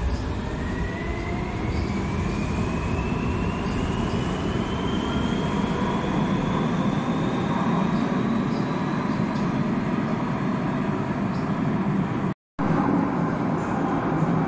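Madrid Metro 3400-series electric train accelerating away from the platform: the whine of its traction motors rises steadily in pitch over about nine seconds above a continuous rumble of wheels on rail. The sound cuts out for a moment about twelve seconds in, then the rumble resumes.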